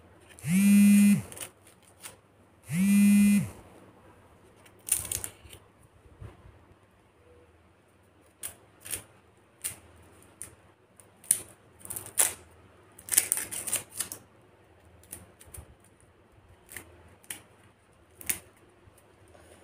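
Papery red-onion skin being peeled and picked off with a small kitchen knife and fingers: scattered light clicks and crackles. Near the start, two loud, steady buzzing tones sound, each under a second, about two seconds apart.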